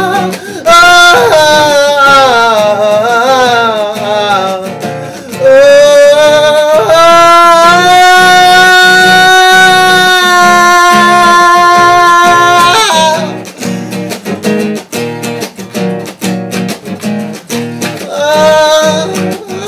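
A man sings wordless vocals over a strummed nylon-string classical guitar: first a line that slides up and down in pitch, then one long held note lasting about six seconds. The voice drops out a little past halfway, leaving only the guitar strumming, and comes back near the end.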